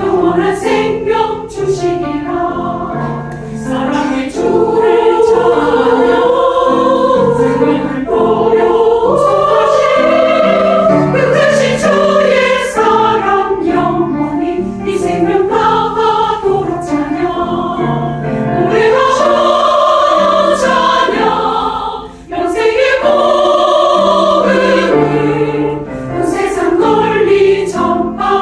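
Church choir singing an anthem in parts, in sustained phrases with brief breaks between them.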